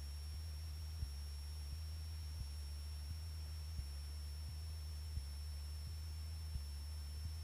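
Steady low drone of a Cessna's piston engine and propeller in cruise, heard faintly through the aircraft intercom feed. A faint high steady whine sits over it, with soft ticks about every 0.7 seconds.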